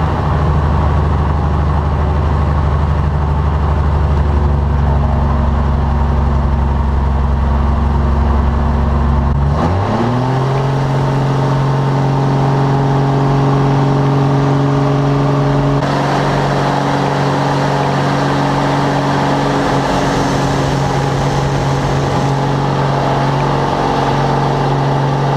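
Slick 540 aerobatic aircraft's Lycoming six-cylinder engine and propeller, heard inside the cockpit. At first it runs at low power with a steady low drone. About ten seconds in the pitch rises sharply as the throttle goes to full for the takeoff run and climb, and it then holds steady at the higher pitch.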